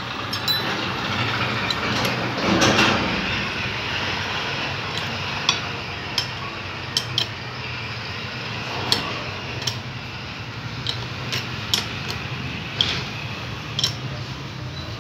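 Sharp irregular metal clicks and clinks of a spanner working the top nut of a coil-spring rear shock absorber as the top mount is tightened down, over a steady background hum. A brief louder noise comes about two and a half seconds in.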